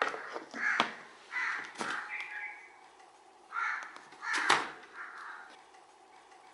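Crows cawing, a string of harsh caws in two bursts with a pause around three seconds in. Sharp plastic clicks as a blender lid is pressed onto its jar, the loudest about four and a half seconds in.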